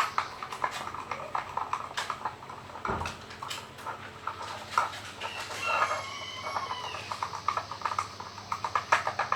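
Clear-glue slime, freshly thickened with borax activator, stirred with a stick in its container: a fast, irregular run of wet, sticky clicks and pops.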